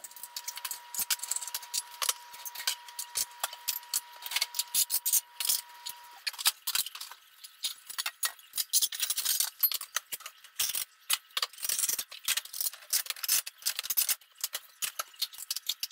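Dishes and cutlery clinking and clattering in quick, irregular knocks as a dishwasher is unloaded. A faint steady high tone runs under them for about the first six seconds.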